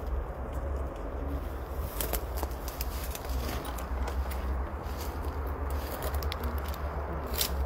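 Footsteps pushing through tall dry grass and weeds, stems crackling and snapping in scattered clicks, with a louder snap near the end, over a steady low rumble.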